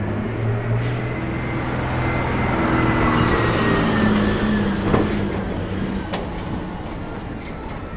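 Large truck driving past close by, its engine running low and steady, growing louder to a peak about halfway through and then fading, with a single sharp knock about five seconds in.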